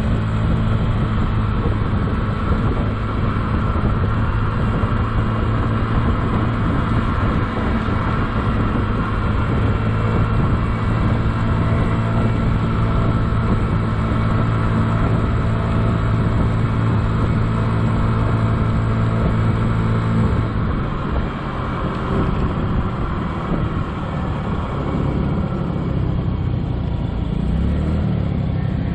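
A 2007 Honda Ruckus scooter's 49cc four-stroke single-cylinder engine running at a steady pace while riding. About two-thirds through, the steady engine note falls away as the throttle eases, and it rises again near the end.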